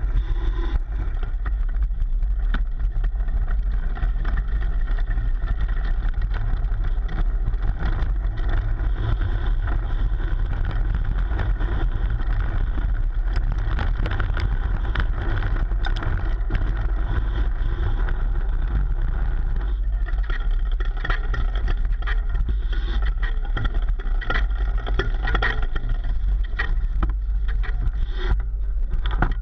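Trek Slash 7 full-suspension mountain bike ridden over a rough dirt trail, heard through a GoPro mounted on its frame: a steady low rumble from the tyres on the ground, with constant rattling and knocking from the chain and frame over bumps.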